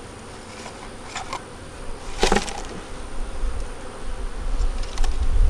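Honey bees buzzing steadily around an open nuc hive during an inspection. There is a sharp knock a little over two seconds in and a few lighter clicks from the hive equipment being handled.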